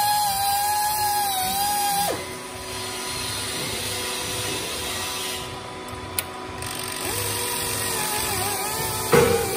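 Hydraulic pump driving a collet-type tube puller, whining and wavering in pitch under load as a tube stub is drawn out of the tube sheet. The whine drops away about two seconds in, comes back lower around seven seconds, and a sharp knock sounds near the end.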